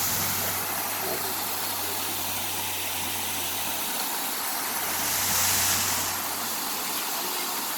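Steady rush of a waterfall and stream, with a low steady hum beneath it and a brief hissing swell about five seconds in.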